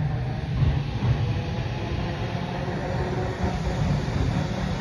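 Vintage tram running along street track: a steady rumble of steel wheels on the rails and the tram's running gear.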